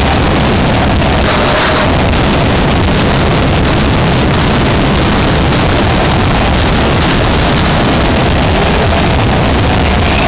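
Stadium crowd roaring, a dense, steady wall of noise loud enough to overload the recording, with a brief louder surge about a second and a half in.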